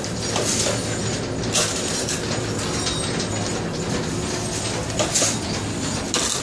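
Industrial machinery running steadily, a constant rumble and hum, with a few sharp metallic clicks and clanks.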